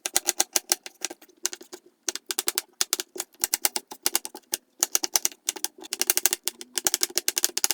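Knife chopping quickly on a cutting board while dicing an onion: rapid runs of sharp taps, several a second, broken by short pauses.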